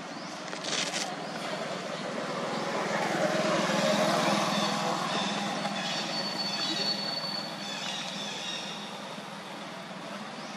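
A motor vehicle passing on the road: its noise swells to a peak about four seconds in, then fades away.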